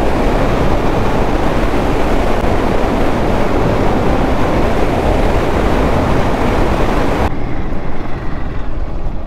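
Hero Xpulse 200 4V single-cylinder motorcycle at highway speed, its engine under heavy wind rushing over the microphone. About seven seconds in the sound drops suddenly to a quieter, duller engine sound as the bike moves slowly.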